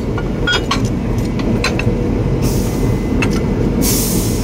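WDM3A diesel locomotive's engine rumbling steadily at idle. Light metallic clinks from the centre buffer coupler's lock lift and chain come in the first couple of seconds, and two short bursts of hiss come about halfway through and near the end.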